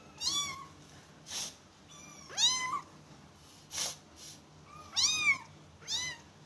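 Small kitten meowing: four thin, high-pitched calls, the second sliding up before it holds, with short breathy sounds in between.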